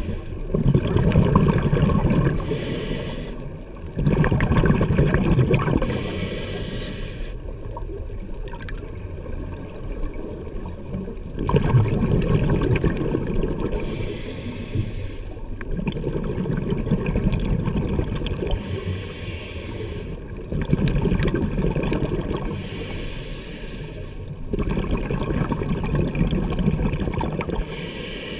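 Scuba diver breathing through a regulator underwater: a short hiss on each inhale, then a longer rush of exhaled bubbles, about six breaths at a slow, even pace.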